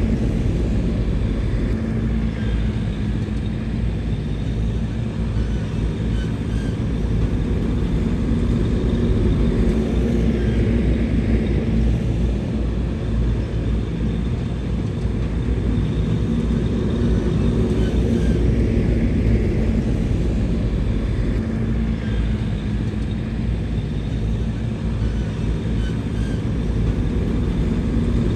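Diesel engine of heavy earthmoving machinery running steadily under load as a low rumble, its pitch easing up and down slightly.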